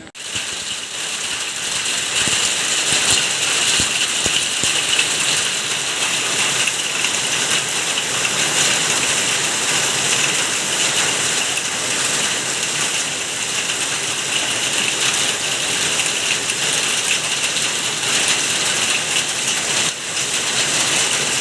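Heavy hail falling: a dense, steady rattle of hailstones hitting hard surfaces, mixed with the hiss of rain.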